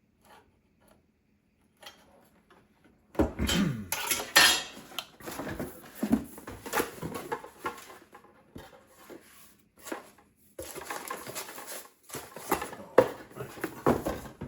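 Small metal computer hardware, such as screws and case parts, clinking and rattling as it is handled and rummaged through, with many sharp clicks and clatters starting about three seconds in.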